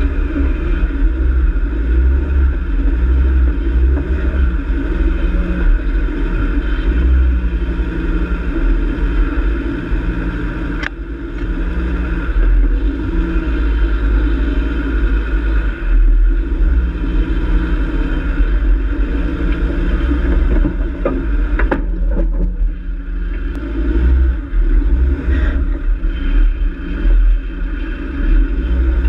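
Off-road 4x4's engine running at low speed as it crawls over a rocky track, the pitch shifting with the throttle. A few sharp knocks come from the vehicle jolting over the rocks, once near the middle and twice about two-thirds of the way through.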